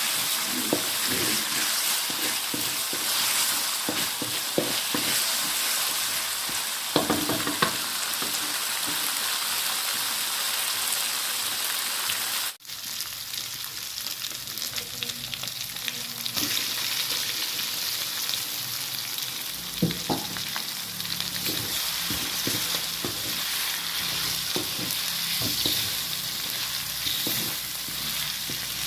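Food sizzling steadily as it fries in a pan, with a spatula stirring and knocking against the pan now and then. The sound breaks off for a moment about halfway through.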